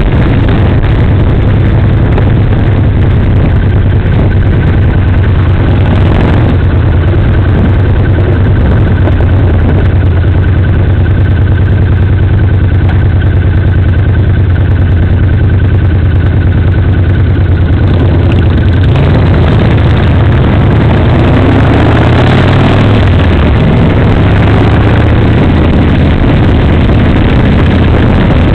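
Motorcycle engine running while riding at a steady speed, with loud wind rushing over the microphone. In the last third the engine note shifts, rising and falling as the speed changes.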